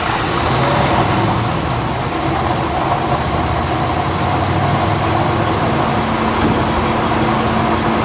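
The 1970 Cadillac's original 472-cubic-inch V8 idling steadily moments after starting, heard close up at the open hood. The owner calls it really smooth.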